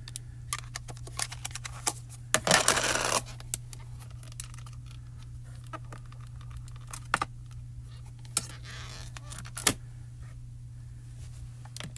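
Small plastic clicks and taps of stamping tools being handled: round ink pads opened and set down and a stamping platform's clear hinged door. There is a brief scuffing rustle a little over two seconds in, and a steady low hum runs underneath.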